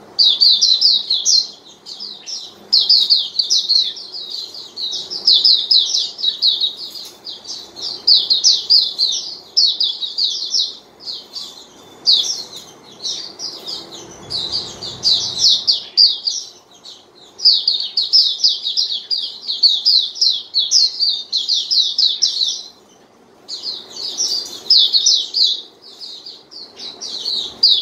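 A Hume's white-eye (pleci auriventer) singing: rapid, high twittering phrases of a second or two each, repeated with short pauses, with one longer pause near the end.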